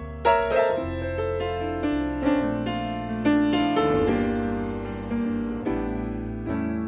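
Piano playing an instrumental interlude between verses of a hymn: a melody of struck, fading notes over held bass notes.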